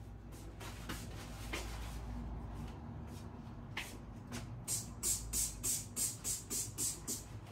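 Trigger spray bottle of cleaning product spritzed rapidly, about ten short hissing sprays at three or four a second, starting just past the middle. Before that, faint handling clicks and rustles.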